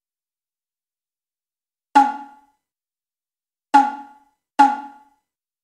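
Three short wood-block-like percussion hits added as a sound effect over dead silence, all at the same pitch: one about two seconds in, then two in quick succession near the end.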